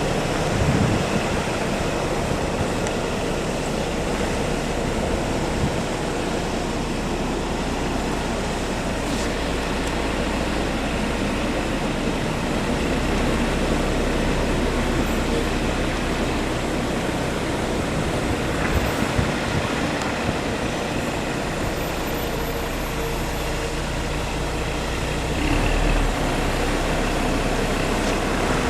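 Heavy road-work machinery running steadily: a low engine hum under a constant wash of mechanical noise. The engine note shifts about halfway through and again near the end.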